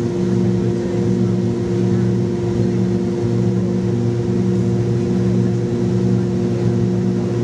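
Steady cabin drone of an MD-80's tail-mounted Pratt & Whitney JT8D turbofans in the climb after takeoff: an even rushing noise under several steady low hums.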